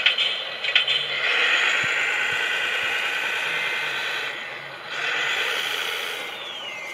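Electric drive and gearbox of an RC model Pegaso Troner 360 truck running as it drives on gravel, a steady high hissing whine that swells and eases, with a pitch that falls near the end.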